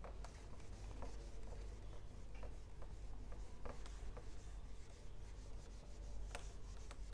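Whiteboard eraser wiping across a whiteboard: soft, repeated rubbing swishes with scattered small knocks, and a sharper tick about six seconds in.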